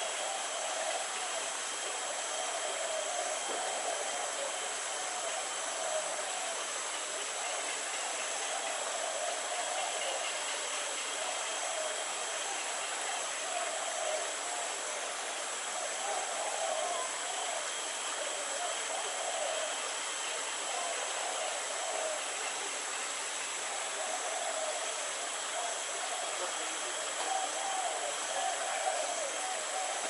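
Steady background ambience: an even hiss with a constant thin high-pitched whine and a faint, uneven murmur underneath, with no distinct calls or knocks.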